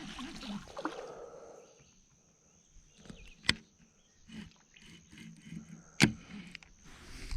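Small knocks and handling noises on a kayak: a wash of water noise that fades over the first second and a half, then two sharp clicks about two and a half seconds apart among fainter knocks, over a faint steady high whine.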